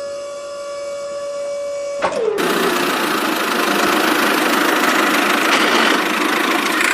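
A small electric motor whines steadily at a high pitch. About two seconds in there is a click, the whine falls away, and a louder, steady rushing noise takes over.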